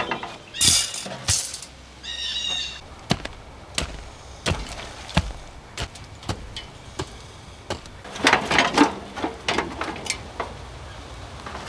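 Metal clanks and rattles from an old gas barbecue being handled, its wire cooking grates and steel body knocking together, with a scattering of single sharp clicks and a short metallic squeal about two seconds in.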